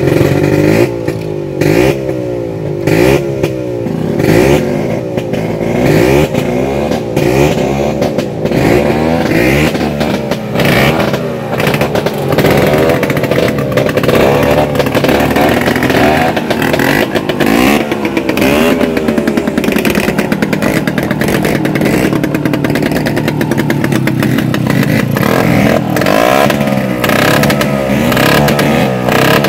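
Modified two-stroke Vespa scooter engine being test-revved, its pitch climbing and dropping again and again with the throttle over a rough, rattling running note.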